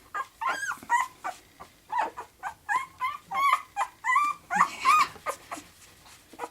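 Ten-day-old border collie puppy whimpering and squealing in a quick run of short, high cries, about three or four a second, thinning out near the end.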